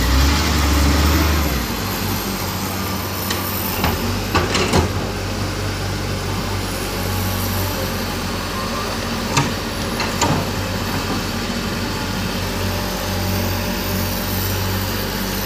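Diesel engines of a tracked excavator and a wheel loader running steadily while they dig and move mud, the engine louder for the first second or two. A few sharp clanks sound partway through, twice in quick pairs.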